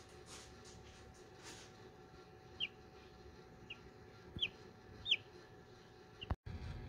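A hatching chicken chick peeping from inside its pipped egg: five short, high peeps, each sliding down in pitch, the loudest about 5 seconds in, over a faint steady hum. Near the end the sound drops out for a moment and a low rumble takes over.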